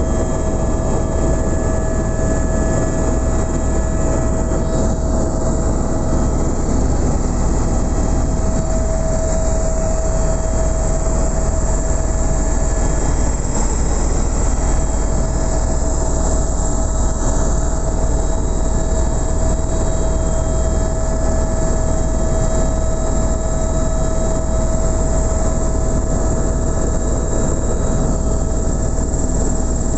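Helicopter in flight heard from inside the cabin: a steady, loud rumble of rotor and engine with a constant whine.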